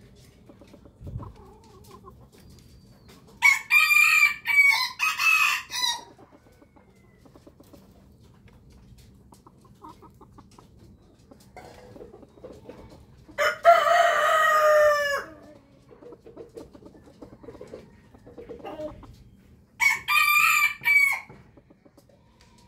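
Roosters crowing three times, each crow a loud pitched call lasting about two seconds, with fainter clucking and farmyard background between the crows.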